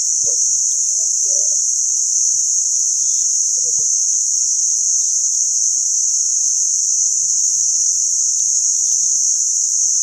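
Loud, steady high-pitched drone of a chorus of insects, unbroken throughout.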